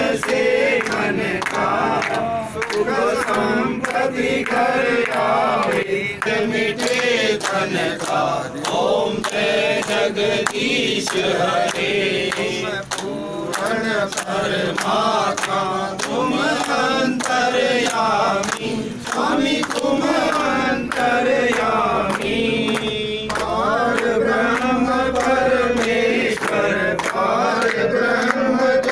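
A group of men and women singing a Hindu aarti hymn together, accompanied by rhythmic hand clapping.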